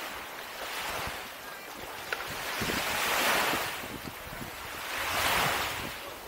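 Small sea waves washing onto a sandy beach, with two louder swells of wash about two seconds apart. Wind buffets the microphone underneath.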